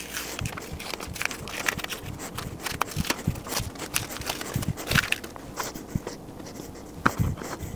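Painter's tape being peeled off a wooden board and crumpled in the hands: an irregular run of crackling and rustling with small sharp ticks.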